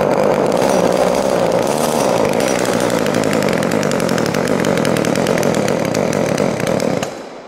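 Echo two-stroke chainsaw engine running steadily on a cold start with the choke set, after three years unused. It cuts out about seven seconds in and dies away.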